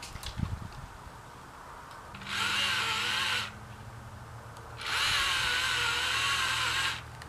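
Husqvarna 120i battery-powered chainsaw running in two bursts, one of about a second and a half and one of about two seconds, its electric motor whine wavering in pitch as the chain cuts into a tree.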